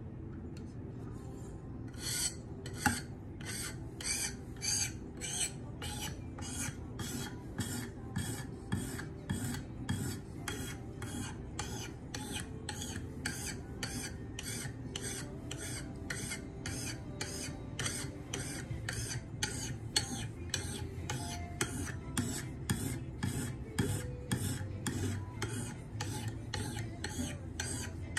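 A 300 grit sharpening stone on a KME guided sharpener, stroked repeatedly along a knife edge, about two to three scraping strokes a second, starting about two seconds in. The blade's second side is being worked to remove the burr raised on the first.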